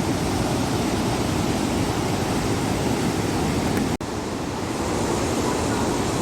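Steady rush of a waterfall running full after two days of rain, cutting out for an instant about four seconds in.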